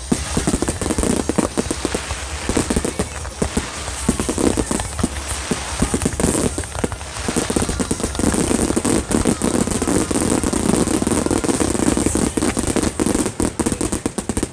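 A fireworks display going off in a rapid, continuous barrage of bursting shells and crackle, densest in the second half and stopping abruptly at the end.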